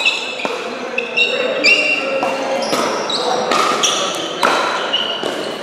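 Pickleball play: sharp pops of paddles striking the hollow plastic ball and the ball bouncing on concrete, coming every half second to second, mixed with many short high squeaks of shoe soles on the smooth concrete floor, in a reverberant hall with several courts in play.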